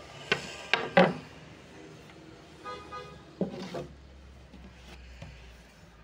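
Dough and a wooden rolling pin knocking on a wooden pastry board: three sharp knocks in the first second, the last the loudest. About three seconds in come two short pitched tones from an unclear source.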